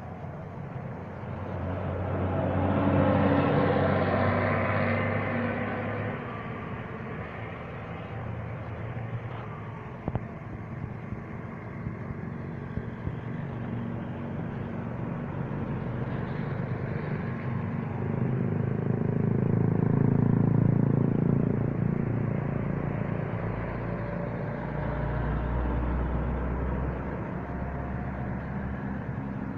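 Vehicle engines running, swelling louder about three seconds in and again around twenty seconds in, with a low rumble near the end.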